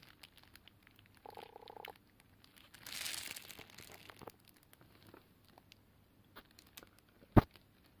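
Horned frog striking at a goldfish in a shallow bowl: one sharp, loud snap near the end as it lunges and clamps its jaws on the fish, after soft rustling and small clicks.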